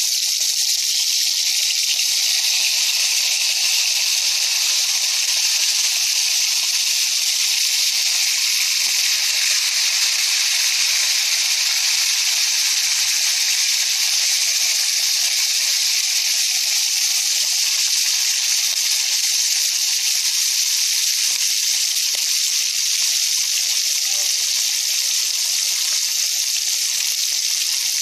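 Pieces of pig's trotter frying in hot oil in a metal pan, a steady sizzle that holds evenly throughout.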